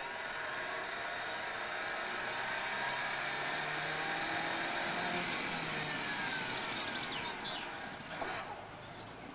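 The automatic folding mechanism of a 1972 folding camping trailer runs steadily with a mechanical hum as the trailer body lowers and closes, with a single clunk near the end.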